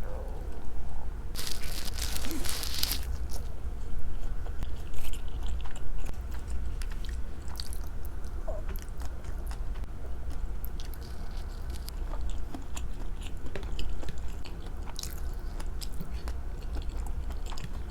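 Close-miked eating of sushi: a loud crunch about a second and a half in, then chewing with many small wet mouth clicks.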